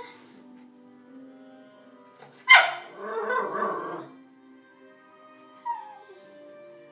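Small dog, a Schnorkie (miniature schnauzer–Yorkshire terrier cross), gives a loud, sudden yelping bark about two and a half seconds in that draws out for over a second, then a short falling whine a few seconds later. Faint TV documentary music plays underneath.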